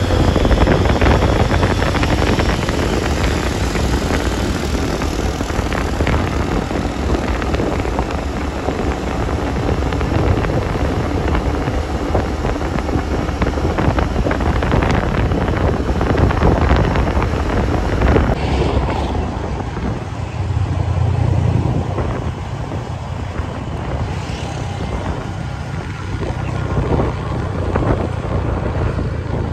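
Wind buffeting the phone's microphone over the low rumble of a motorcycle riding through traffic, heard from the pillion seat. About two-thirds of the way in the sound changes abruptly and becomes less hissy.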